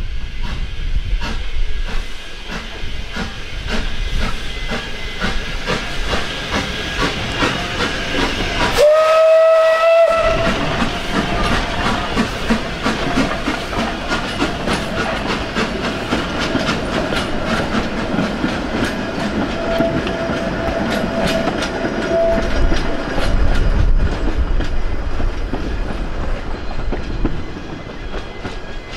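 Isle of Man Railway No. 12 Hutchinson, a Beyer Peacock 2-4-0 tank engine, running with a rapid, steady beat and hiss. About nine seconds in it sounds its steam whistle, the pitch rising as it opens and then held, and near two-thirds of the way through the whistle sounds again more faintly for a few seconds.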